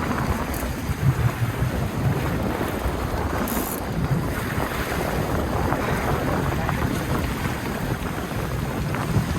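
Wind buffeting the microphone aboard a fishing boat at sea, over a steady low rumble and the rush of water.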